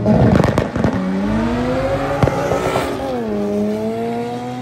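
A Ford Mustang and a Honda Civic hatchback launch in a drag race with a burst of crackling exhaust pops. Then they accelerate hard down the strip, the engine pitch rising, dropping once at a gear change about three seconds in, and rising again.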